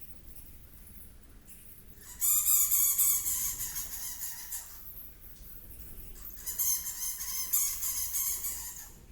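Two long, harsh, buzzy animal calls, each lasting two to three seconds, with a pause of about two seconds between them.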